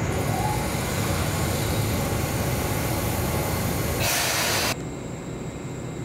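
Electric train running by with a steady low rumble. About four seconds in there is a short burst of hiss, and then the sound drops away abruptly.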